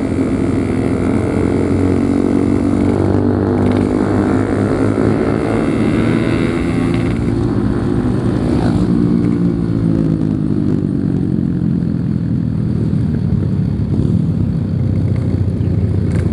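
Yamaha RX-King 135cc single-cylinder two-stroke motorcycle engine running under way, its pitch rising and falling gently with the throttle, with wind and road noise.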